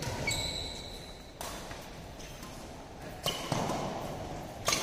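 Badminton rackets striking a shuttlecock in a doubles rally: several sharp hits a second or more apart, echoing around the hall, with short high squeaks of shoes on the court mat.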